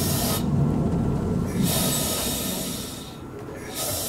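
Iyo Railway Moha 50 streetcar heard from inside, slowing toward a stop: the running rumble of the motors and wheels on the rails fades, with bursts of hiss.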